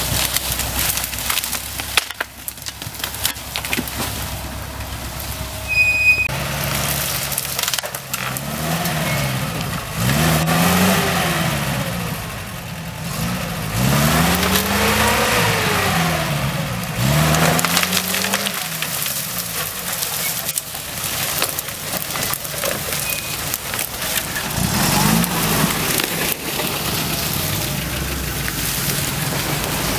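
UAZ-469 off-roader's engine revving up and down several times as it crawls through a thicket, with twigs and branches cracking and snapping under the tyres and against the body.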